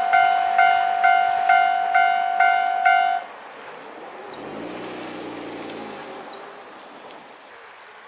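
Japanese railway level-crossing warning bell ringing in a steady repeating ding, a little over two strikes a second, then cutting off suddenly about three seconds in once the train has cleared the crossing.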